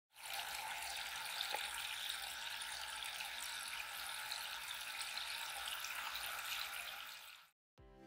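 Tabletop fountain running: thin streams of water fall and splash steadily into its basin, then cut off suddenly about seven and a half seconds in.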